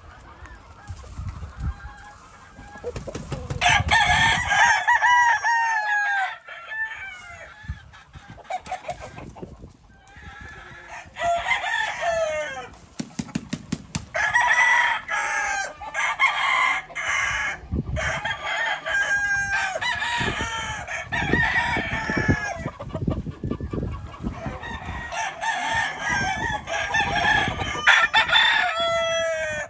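Several roosters crowing again and again, some crows overlapping, with clucking in between.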